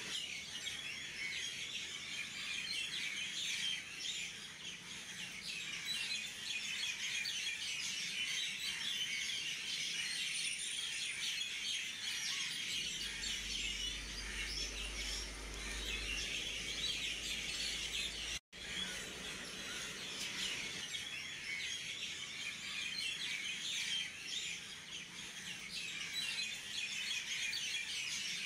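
Many small birds chirping continuously in a dense chorus, with a momentary dropout about two-thirds of the way through.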